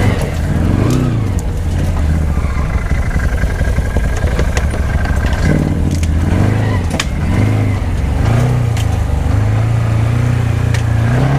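ATV engine revving up and down in repeated surges on a rough trail, with scattered sharp knocks and clatter from the machine working over rocks.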